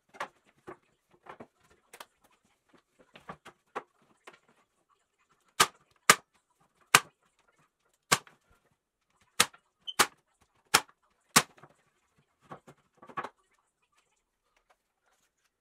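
Sharp knocks and taps on wood, irregularly spaced: soft taps at first, then about eight loud knocks roughly half a second to a second apart, with a few softer taps near the end.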